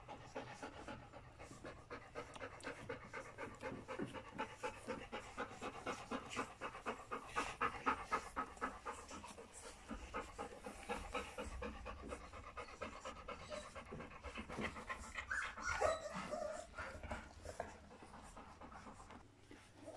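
A mother dog panting steadily in quick, even breaths while her puppies nurse, with one short squeak about sixteen seconds in.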